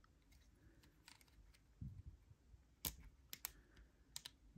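Faint, scattered clicks and taps of small plastic action-figure parts being handled as an arm's peg is fitted onto the shoulder, with one soft knock about two seconds in.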